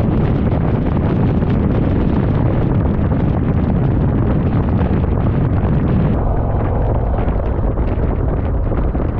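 Heavy wind rushing over the microphone of a moving motorcycle, with low road and engine rumble beneath. About six seconds in, the hiss eases and sounds duller.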